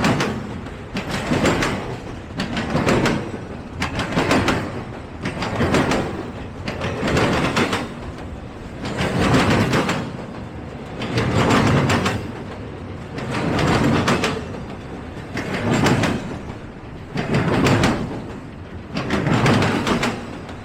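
Freight train rolling past, the noise rising and falling about every two seconds as each car goes by.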